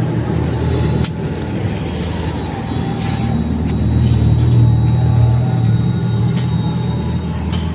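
A motor running with a steady low hum, a little louder about halfway through, with a few light clicks of hand tools.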